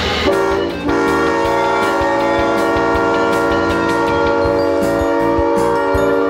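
Diesel locomotive air horn sounding a multi-note chord: a short blast just after the start, a brief break, then one long held blast.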